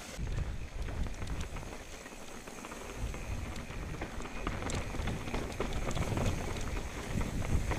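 Mountain bike rolling fast over a rocky trail: tyres crunching and crackling on loose stones and rock, with many small clicks and rattles from the bike, over a steady low rumble.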